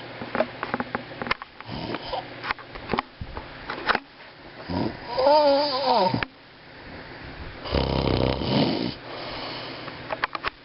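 A man snoring loudly in his sleep: two long snores near the middle, the first with a wavering pitch, the second lower and rasping, with small clicks in between.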